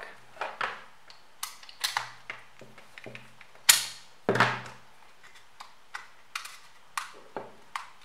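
A string of sharp plastic clicks and knocks as an Australian power-cord plug is pushed into and pulled out of a plastic universal travel plug adapter, then the adapter is handled. The loudest click comes about halfway through.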